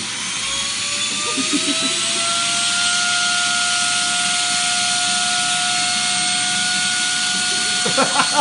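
Household vacuum cleaner running loudly, its motor whine still rising in pitch as it spins up over the first few seconds, then holding a steady high whine over a rushing hiss.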